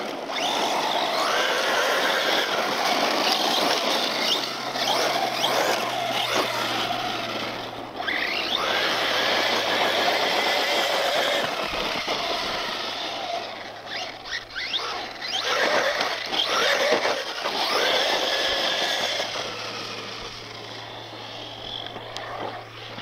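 Brushless electric motor of a Traxxas RC truck whining, rising and falling in pitch as the throttle is worked, over tyres scrabbling and sliding on loose desert dirt. It grows quieter over the last few seconds.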